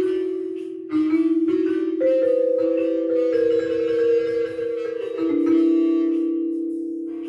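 Live ensemble music on mallet percussion. Notes are held as fast tremolo rolls in a slow melody, with each new note or chord coming in about every second.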